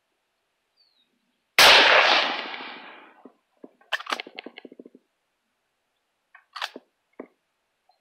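A single shot from a Winchester Model 1895 lever-action rifle in .30-06, loud and sharp about one and a half seconds in, its echo fading over about a second and a half. It is followed by two clusters of metallic clacks and rattles, consistent with the lever being worked to eject and rechamber, around four seconds in and again near seven seconds.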